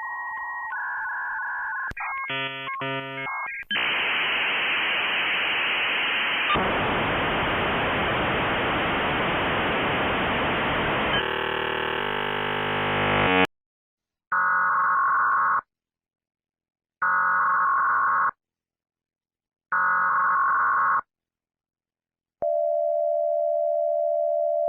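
A sequence of electronic telephone-line sounds. First come steady tones and a quick run of switching dialling-like tone chords, then about ten seconds of loud hiss that stops abruptly. After that come three tone bursts about two and a half seconds apart and a steady low tone near the end.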